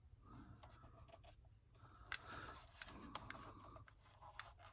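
Near silence with faint scrapes and small sharp clicks, a 1/18 scale diecast model car being handled and set down; the sharpest click comes about two seconds in.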